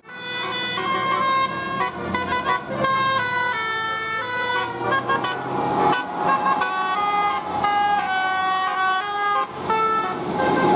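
Bus 'telolet' basuri horn, a multi-tone musical air horn, playing a fast tune of short stepped notes, one after another, loud throughout.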